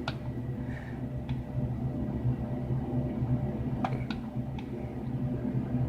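A steady low electrical hum with a few faint, short clicks scattered through it, typical of buttons being pressed on a running CRT monitor's front panel.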